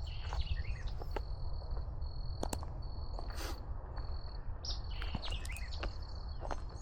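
Outdoor morning ambience: birds chirping and a high, steady trill that comes in repeated phrases about a second long, over a low steady rumble, with a few faint clicks.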